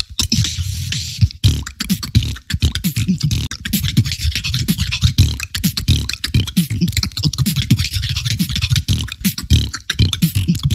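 Human beatboxing: a fast, dense run of sharp snare and click sounds over repeated deep bass pulses, in a technical routine.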